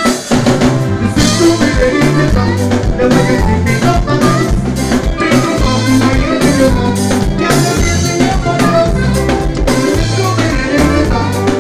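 Live band music with a steady drum-kit beat and a saxophone-led horn line, in a reggae-style groove.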